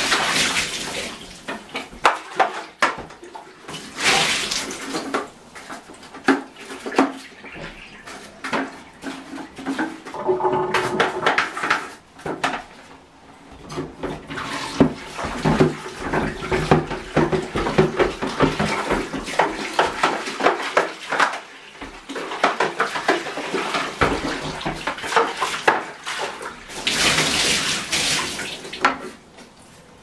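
Water splashing and running in a bathtub while hard plastic Henry vacuum cleaner parts are washed by hand, with irregular knocks and scrapes of plastic against the tub.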